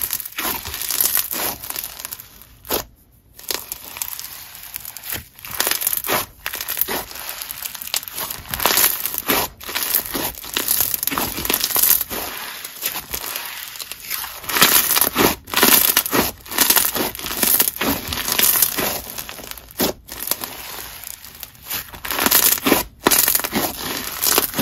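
Clear-base slime with snow fizz and foam beads being squeezed and kneaded by hand, giving dense crunchy crackling with many sharp pops and clicks.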